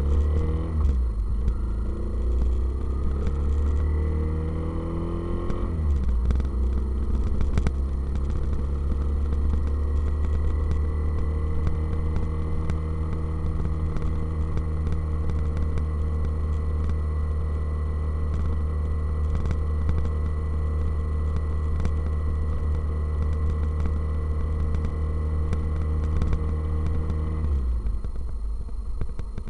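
Motorcycle engine accelerating, its note rising for about six seconds, then after a shift holding a steady note at cruising speed, with heavy wind rumble on the microphone. Near the end the engine note falls away.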